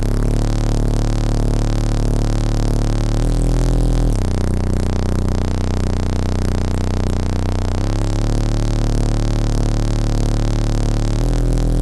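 Bass-heavy music played loud through a car audio system with Resilient Sounds subwoofers, heard inside the vehicle's cabin: deep, sustained bass notes that change pitch every few seconds.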